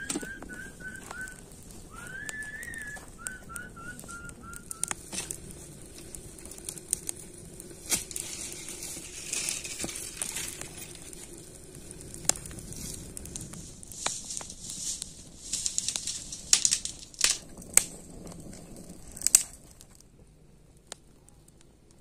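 A bird sings twice in the first few seconds, each time a rising whistle followed by a quick run of short notes. Then a wood campfire crackles, with many sharp pops and snaps, until the sound drops away near the end.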